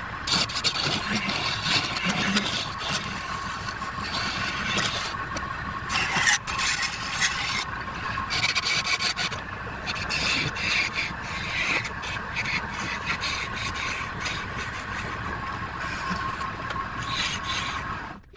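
Woodturning lathe running with a steady whine while a turning tool scrapes and cuts the spinning wood in uneven rasping strokes.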